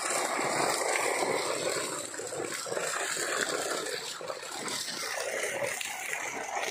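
Water splashing and sloshing as a net full of live fish is hauled against the bank, with fish flapping in the mesh. Irregular, crackly splashing with no steady rhythm.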